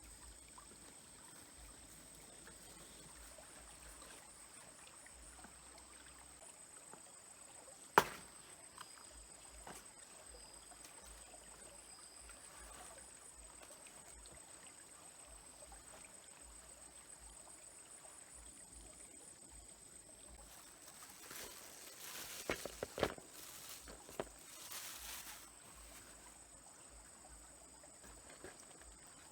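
Small stream trickling faintly under a thin, steady high-pitched tone. A single sharp click sounds about eight seconds in, and a short run of knocks and rustling comes near the end.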